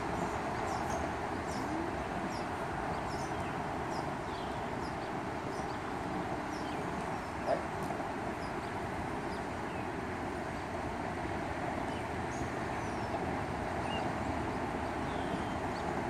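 Outdoor background ambience: a steady hiss with faint, scattered high bird chirps, and one short dog bark about seven and a half seconds in.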